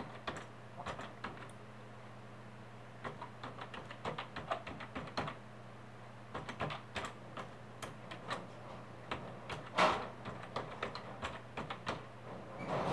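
Computer keyboard typing in quick, irregular runs of keystrokes, with a couple of short pauses and one louder keystroke near ten seconds in. A low steady hum runs underneath.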